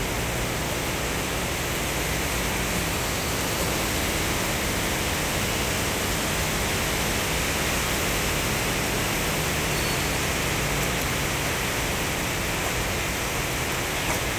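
Heavy rain pouring onto pavement and a wet road, a steady dense hiss.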